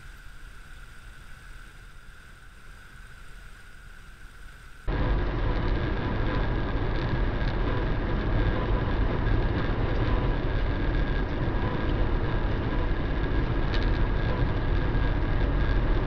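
Steady road and engine noise of a car at highway speed, heard from inside the cabin through a dashcam, starting suddenly about five seconds in. Before it there is only a faint street hum with a thin, steady high whine.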